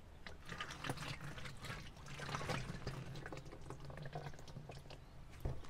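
Used engine oil pouring from a plastic bucket into a plastic garbage can, starting about half a second in and tailing off near the end.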